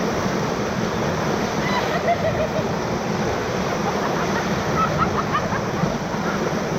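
Whitewater rapids of the Ocoee River rushing and crashing around a raft in a steady roar of water, with a few faint shouts from the crew about two and five seconds in.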